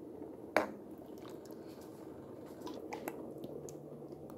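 Metal ladle serving bean soup from a stainless steel pot: one sharp clink about half a second in, then a few lighter clicks and wet squishing of thick soup being scooped.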